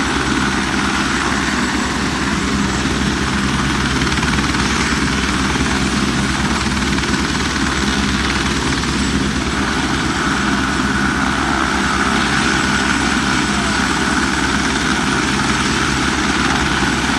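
Light helicopter running on the ground, its rotor chopping steadily under a high engine whine that grows stronger about ten seconds in.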